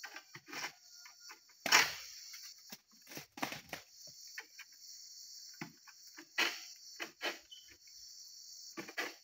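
Steady high-pitched insect chorus, with irregular knocks and scrapes from a long-poled harvesting sickle working at oil palm fronds high in the tree; the sharpest knocks come about two seconds in, at about six and a half seconds and near the end.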